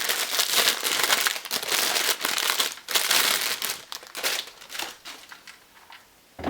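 Packaging being handled and unwrapped, crinkling and rustling densely for the first few seconds, then in sparser, fainter crinkles toward the end.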